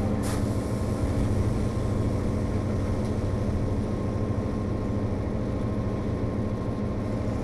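HO scale model train running along the layout: a steady, engine-like low drone with a thin high hum above it, and a brief click just after the start.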